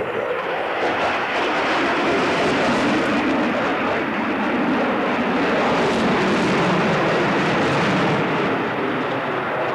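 Jet fighter flying a display pass, its engines a loud, steady rush of jet noise that swells through the middle and eases a little near the end.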